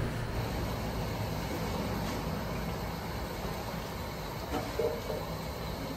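Steady low background rumble of street-stall ambience, with a brief faint clatter a little before the end.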